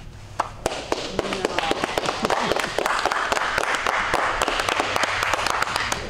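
A group of people applauding: a few scattered claps at first, quickly building into steady, dense applause.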